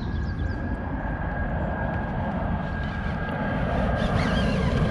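Motorboat engine drone passing on the river, a steady low rumble growing gradually louder.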